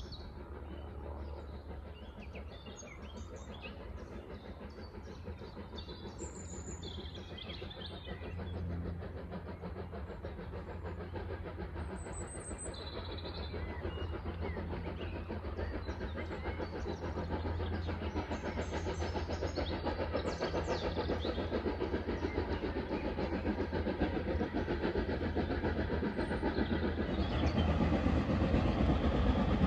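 A steam locomotive hauling a train approaching along the line, its steady rumbling growing gradually louder as it draws nearer.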